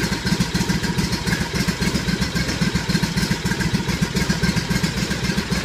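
Riding lawnmower's small engine running fast and even just after a cold start in freezing weather, still on choke and not yet warmed up.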